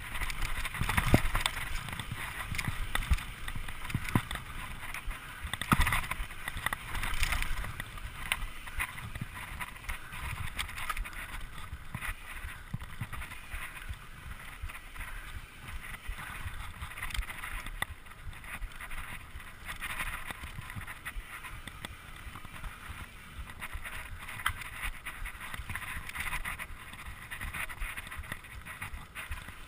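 Mountain bike riding fast over a dirt singletrack: steady tyre noise on the dirt, with the bike rattling and knocking over bumps and roots. The hardest jolts come in the first several seconds.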